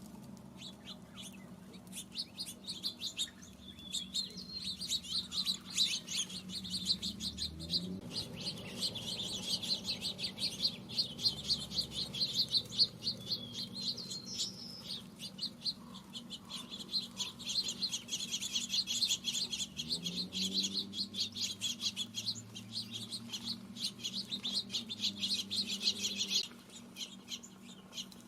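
A flock of small songbirds chirping and chattering rapidly and continuously, stopping shortly before the end. A low steady hum runs underneath, and a low sound rises in pitch twice.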